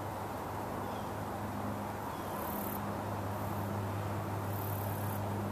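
A steady low hum under outdoor background noise, with a faint high-pitched buzz that comes and goes a few times.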